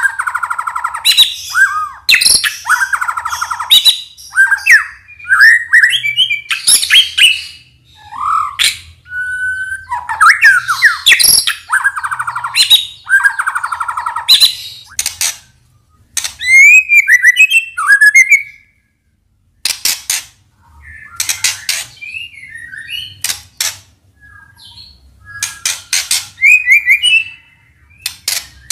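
White-rumped shama (murai batu) singing a loud, varied song: whistled phrases that slide up and down, harsh rasping notes and sharp clicking notes, with a short pause a little past the middle.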